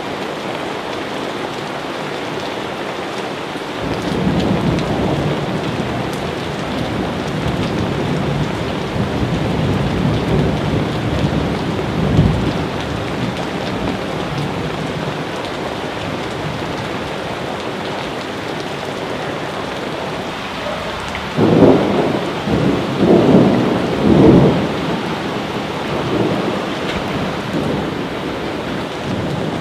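Steady heavy rain with rolling thunder: a low rumble swells in a few seconds in, and a louder burst of thunder rolls and cracks several times a little past the middle.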